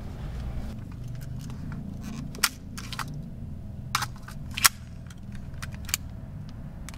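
Sharp metallic clicks and clacks of a semi-automatic pistol being handled and checked, about five of them a little apart, the loudest about two-thirds of the way through, over a low steady rumble.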